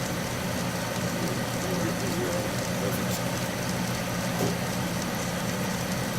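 Atlas metal lathe running steadily, turning an end mill in a shop-made milling attachment, with an even hum.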